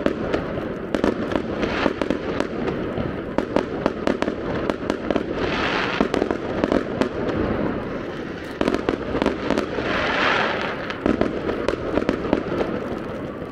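Aerial fireworks display: shells bursting in a dense, continuous run of bangs and crackles, with two longer rushes of noise about six and ten seconds in.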